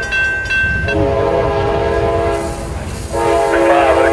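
Multi-chime air horn of an approaching CSX freight locomotive, a GE CW40-8, sounding a string of blasts. The chord shifts about a second in and a new, louder blast starts about three seconds in, over the low rumble of the train.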